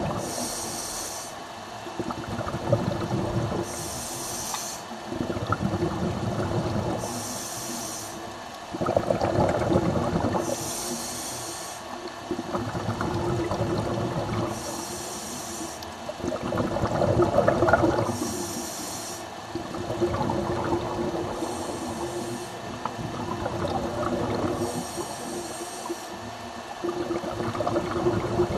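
Scuba diver's regulator breathing underwater: about eight short hissing inhalations, each followed by a longer rush of bubbling exhaust bubbles, repeating every three to four seconds.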